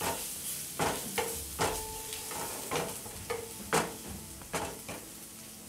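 Chopped garlic sizzling in hot oil in a pan while it is stirred, with a steady hiss and irregular sharp clicks of the utensil against the pan, about eight in all.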